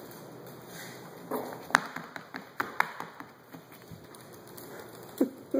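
Small dog's claws clicking and tapping on a hardwood floor as it scampers about: a quick, irregular run of taps starting about a second in, the sharpest just before two seconds, then a couple of louder knocks near the end.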